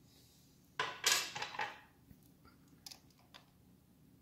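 A short burst of clattering and rustling about a second in, then a few light clicks: hands handling ignition wiring and small metal parts.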